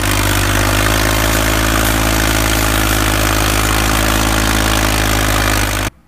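Farm tractor's diesel engine running steadily at high load while hauling an overloaded sugarcane trolley, heavy enough to lift the tractor's front wheels. It starts and stops abruptly.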